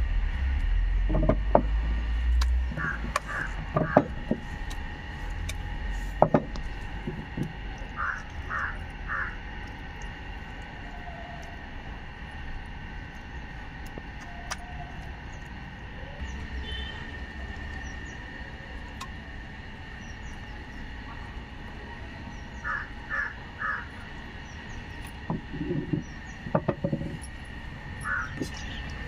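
Crows cawing in short runs of three, several times over. A few sharp knocks come in the first few seconds and again near the end.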